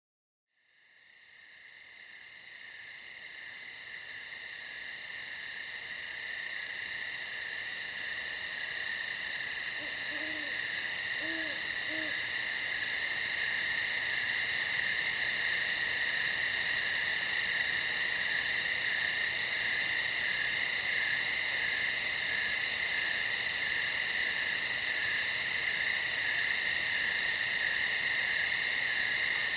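Night insect chorus: a dense, steady, high-pitched trilling that fades in over the first several seconds. A few soft owl hoots come about ten to twelve seconds in.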